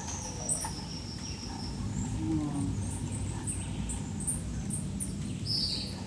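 Hummingbirds giving short, high chips and twitters, one call sliding downward in the first couple of seconds and a brighter note near the end, over a steady low background hum.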